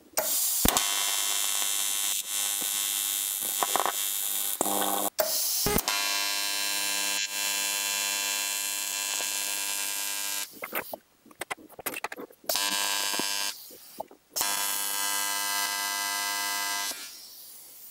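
AC TIG welding arc on aluminum from an Arccaptain TIG200P set to 100 Hz AC, a steady electric buzz. The arc is struck and broken several times, with a few short sputtering starts just past the middle, and cuts off near the end.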